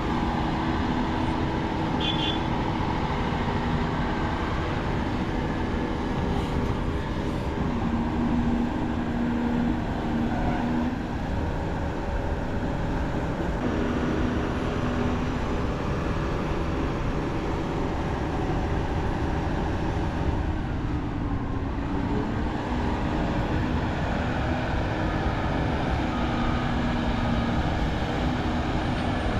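Volvo EC550 excavator's large diesel engine running steadily under digging load. Its engine note shifts now and then as it works.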